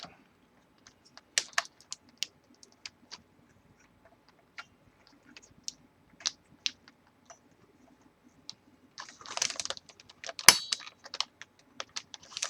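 Scattered small clicks and taps from handling a CPU heatsink fan while fastening it onto a motherboard. A short scraping rustle comes about nine seconds in, and the loudest sharp click about a second after it.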